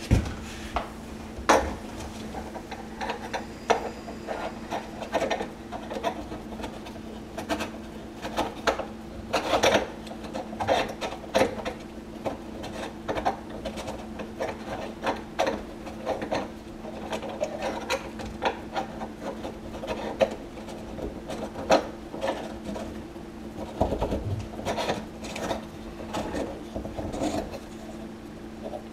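Kitchen sink basket strainer's washers and locknut being fitted and threaded on by hand from beneath the sink: irregular scraping, rubbing and clicking, over a steady low hum.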